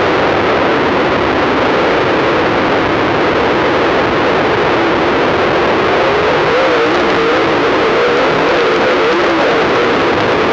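Dirt late model race cars' engines running hard around the track, heard as a loud, harsh, distorted wash with a wavering pitch; the camera microphone is overloaded.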